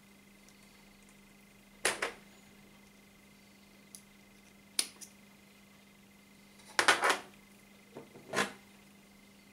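Short clicks and rustles from hands handling a metal snap swivel and monofilament fishing line while tying it on, in four brief bursts, the loudest about seven seconds in, over a faint steady hum.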